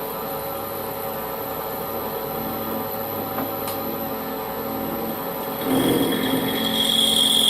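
Holbrook C8 toolroom lathe running steadily at high spindle speed. About six seconds in a parting-off tool starts to cut the spinning workpiece and the sound gets louder, with a high-pitched squeal over a rougher cutting noise.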